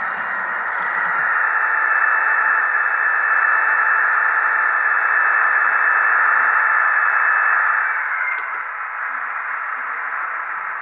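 Märklin H0 model of a class 216 diesel-hydraulic locomotive running on the layout, its digital sound module giving off a steady, hissy diesel engine noise through the model's small speaker. The noise drops to a lower level about eight seconds in as the locomotive comes to a stop, with a short click at that point.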